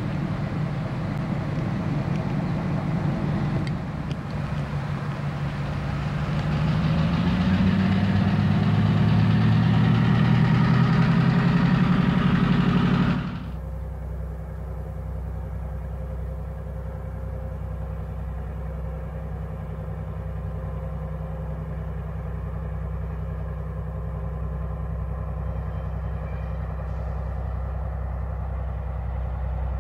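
Diesel switcher locomotive engine running, its pitch and loudness climbing as it revs up from about six seconds in. Near the halfway point the sound cuts off abruptly to a steady, quieter low engine drone.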